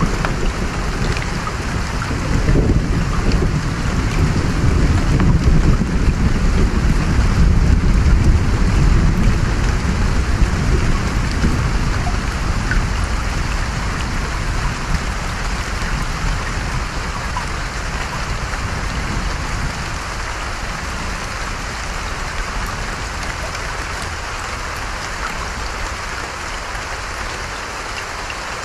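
Long rolling rumble of distant thunder, strongest through the first half and slowly dying away, over a steady rush of creek water and rain.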